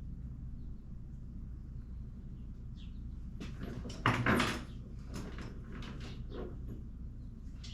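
Tools being handled: light clicks and knocks, with one louder clatter about four seconds in, over a steady low hum.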